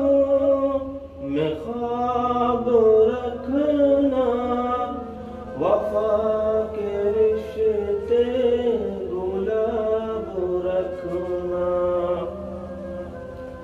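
A man's voice singing an Urdu ghazal in long, drawn-out melodic phrases that glide up and down, over a soft steady drone. The singing stops about a second before the end, leaving the drone.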